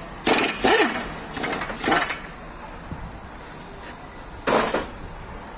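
A power tool run in four short bursts, the third a quick run of rapid hammering strokes.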